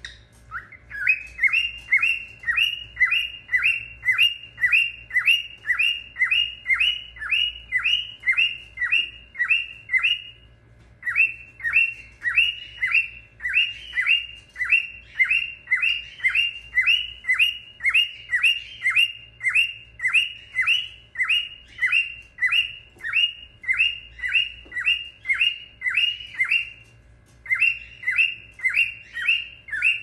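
Cockatiel calling a long run of short, rising chirps, about three a second, with a brief break about ten seconds in and another near the end. A faint steady hum lies underneath.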